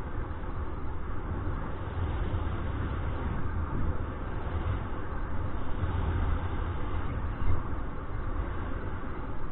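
Wind rushing over the camera microphone of a paraglider in flight: a steady low rumble with rushing noise and no tones, and a brief louder gust about seven and a half seconds in.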